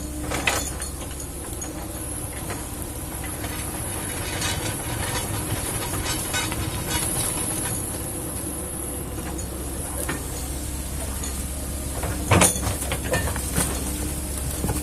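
Kobelco excavator running steadily with a low engine hum, with scattered metallic knocks and clanks from the machine at work. The sharpest knock comes near the end.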